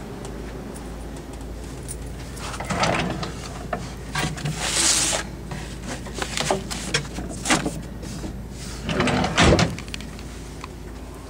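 Scattered knocks, clicks and a short rustle, with the loudest cluster of knocks about nine seconds in, over a steady low hum.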